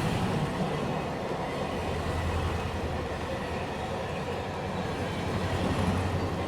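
Train running on the rails: a steady low rumble with track noise, swelling slightly near the end.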